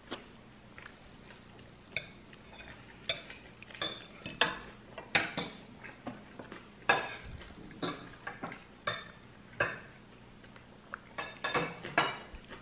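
Cutlery and kitchenware clinking and scraping against dishes: irregular sharp taps, some with a short ring, spread through the stretch and bunching together near the end.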